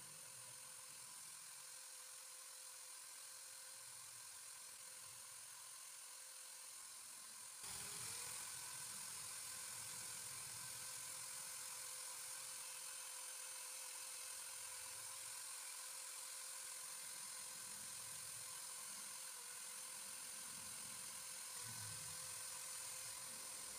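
Electric drill running steadily with a motor whine, spinning a fishing float held on a wire in its chuck; the whine gets abruptly louder about eight seconds in.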